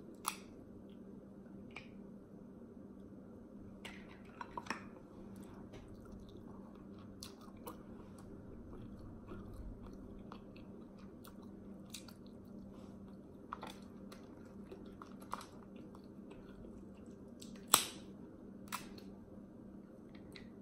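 Snow crab leg shells cracked and snapped apart by hand, a scattering of sharp cracks with the loudest near the end, between quiet chewing of crab meat, over a faint steady hum.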